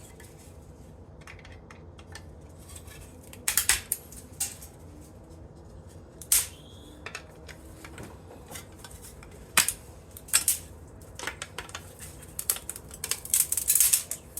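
Small aluminum scrap pieces from an electric organ clinking and clattering as they are handled and set down in a pile, in scattered bursts. One piece rings briefly about six seconds in.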